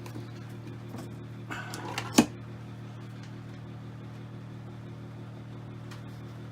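One hard hammer blow on a heavy-duty hammer-type crimping tool about two seconds in, metal striking metal to crimp a lug onto a tinned battery cable, after a moment of handling noise. A steady hum runs underneath.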